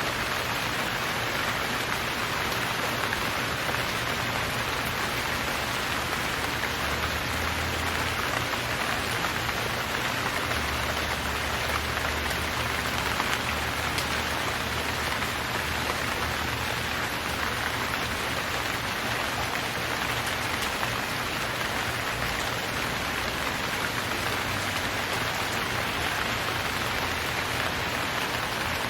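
Steady rain falling on surfaces, a continuous even hiss of many drops with no let-up.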